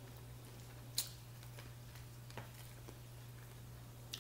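A few faint clicks and taps of a plastic spoon in a plastic cup, the sharpest about a second in, over a steady low hum.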